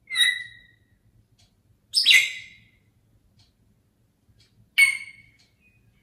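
African grey parrot giving three short, loud whistled calls two to three seconds apart, each starting sharply and dying away quickly. These are the calls of a parrot left alone with nobody in sight.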